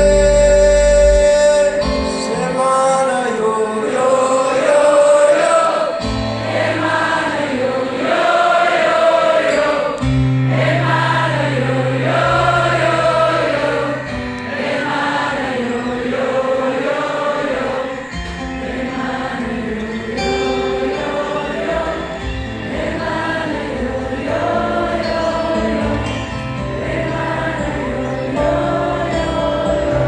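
Live music: a long wordless sung melody that sounds like many voices singing together, over acoustic guitar and held low bass notes that change every few seconds.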